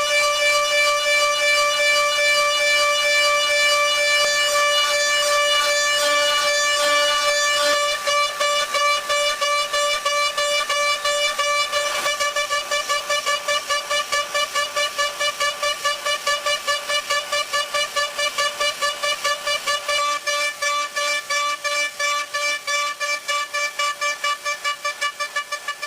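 A loud, steady horn-like tone that from about eight seconds in pulses on and off several times a second, faster toward the end.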